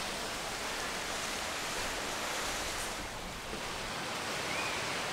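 Steady wash of surf on a beach, an even hiss with no distinct breaks.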